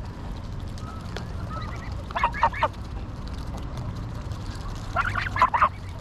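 Greylag geese feeding close by give two short bursts of quick, low cackling calls, about two seconds in and again about five seconds in, over a steady low rumble.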